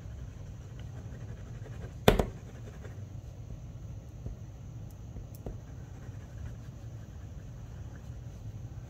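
Faint scratching and dabbing of a liquid glue bottle's applicator tip on cardstock, with one sharp knock about two seconds in, over a low steady hum.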